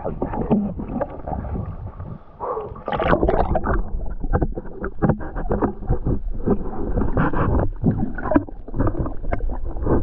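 Sea water sloshing and gurgling around a swimmer, with irregular splashes and knocks and a brief lull about two seconds in.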